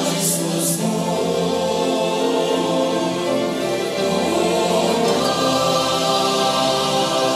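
Mixed choir singing held chords, with orchestral accompaniment underneath.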